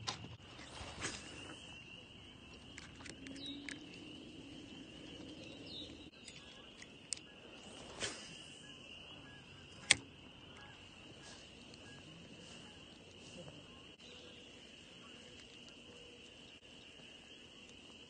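Steady, high-pitched trilling of insects, with a few sharp clicks from a spinning reel and rod being handled, the loudest about ten seconds in.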